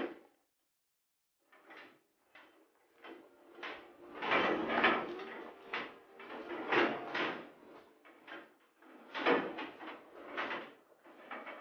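Metal headlock feed barrier rattling and clanking in irregular bursts as dairy cows push and shift their heads through it to eat, starting about a second and a half in.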